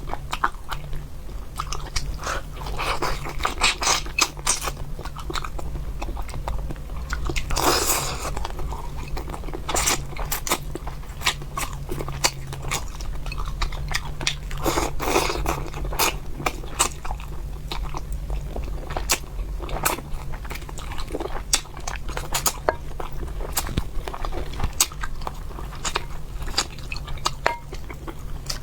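Close-miked chewing and crunching of braised fish, with many wet mouth clicks and smacks and a few longer, louder stretches of chewing. A low steady hum runs underneath.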